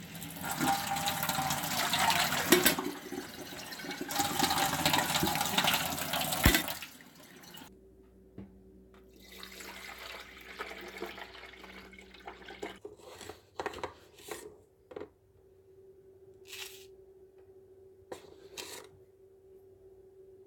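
Water running hard from a tap for about six and a half seconds, then shut off abruptly. Afterwards come quieter scattered clicks and knocks of handling over a faint steady hum.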